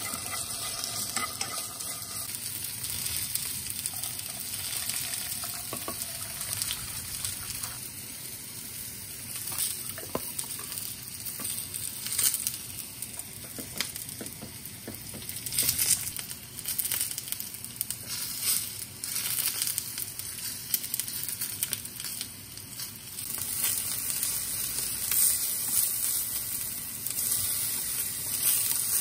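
Food sizzling in a frying pan, with scattered clicks and scrapes of cooking utensils. The sizzling gets louder near the end, where kabocha squash slices fry and are turned with a wooden spatula.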